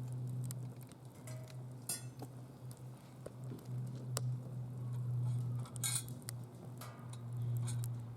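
Wood fire crackling in a DOD Mecha Moe Fire fire pit: irregular sharp pops and ticks, with short crackling bursts about two and six seconds in, over a steady low hum.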